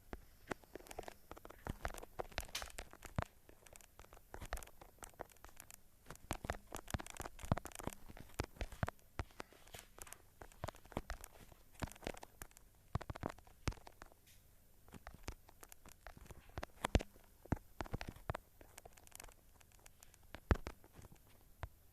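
Irregular clicks and crackles with some rustling, coming in uneven clusters.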